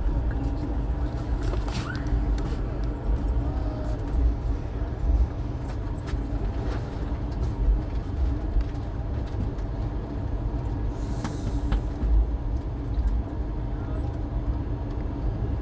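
Passenger train running at speed, heard from inside a carriage: a steady low rumble of wheels on the rails with a few sharp clicks, and faint voices underneath.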